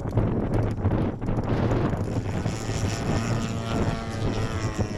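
A DL-50 50cc gas engine running on a large RC aerobatic plane, a propeller-driven buzz whose pitch shifts with the throttle from about two seconds in, with wind buffeting the microphone.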